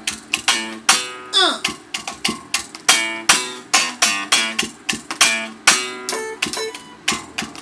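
Guitar strummed in a steady rhythm of short, sharp chords, about two to three strokes a second, each ringing briefly before the next.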